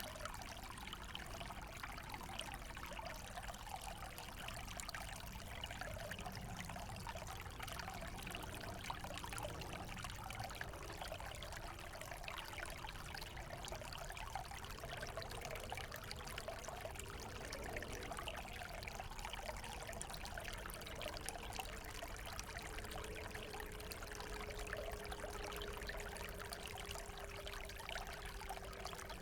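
Small forest stream flowing steadily, water trickling and splashing over stones.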